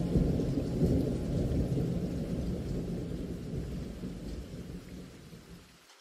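Rain with low rumbling thunder from a thunderstorm ambience track, fading out steadily and stopping just before the end.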